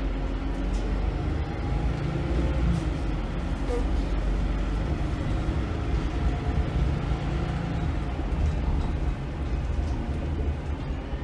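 Volvo B8RLE single-deck bus's six-cylinder diesel engine running while the bus is under way, heard from inside the passenger cabin near the rear: a steady low engine drone over road noise.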